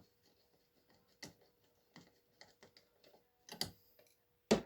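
Light, irregular clicks and taps of a 10 mm wrench working the small screw on the front of a Craftsman 42cc chainsaw, with a louder knock near the end.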